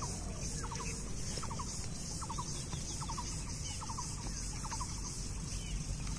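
An animal calling in short clusters of two or three quick notes, repeated about every three-quarters of a second, over a steady high hiss.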